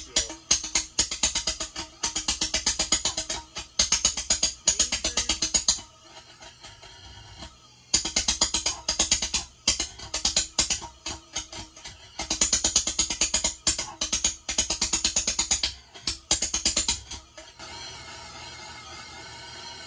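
Combustion burner's flame tube pulsing in rapid, loud pops, about ten a second, in runs of several seconds with short lulls between, running rich on too much fuel. Near the end it settles to a quieter steady hiss.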